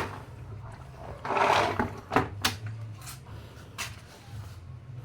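A short scrape about a second in, followed by four sharp clicks and knocks of hard objects being handled, over a steady low hum.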